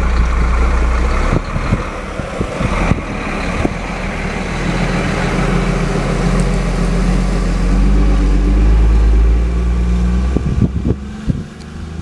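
Heavy truck engine running, its note building a few seconds in and dropping away near the end, over a low rumble with scattered sharp knocks.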